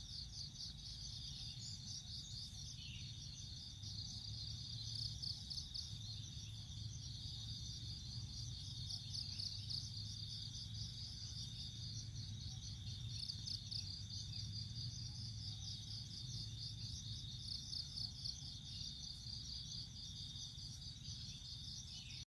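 Insect chorus: a steady, high-pitched pulsing trill of chirping insects, with a faint low hum underneath.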